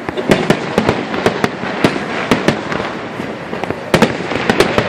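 Fireworks display: a rapid, irregular string of sharp bangs and pops over a continuous crackling rumble, with a cluster of the loudest bangs about four seconds in.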